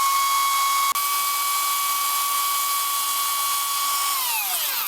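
Electric heat gun (paint remover gun) running with a steady high whine from its fan motor. It is switched off about four seconds in, and the whine falls in pitch as it spins down.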